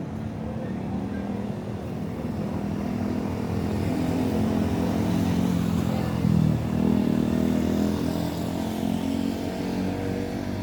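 A motor vehicle's engine running steadily, growing louder over the first six seconds or so and then easing off slightly.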